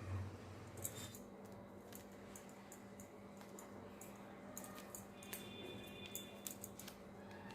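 Faint rustling and scattered light clicks of a cotton cloth being gathered and tied into a small bundle, with a soft thump at the start, over a low steady hum.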